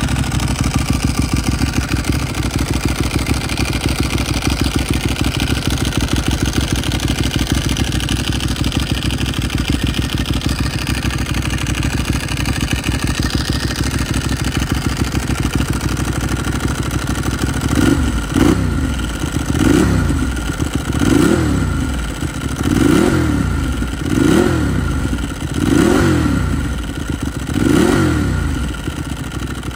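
A 2011 Ducati 1198S's 1198 cc L-twin engine idles with a steady, lumpy pulse through Termignoni Titan slip-on exhausts with the dB killers removed. About two-thirds of the way in it is revved in seven quick throttle blips, each rising and falling in pitch, roughly one and a half seconds apart.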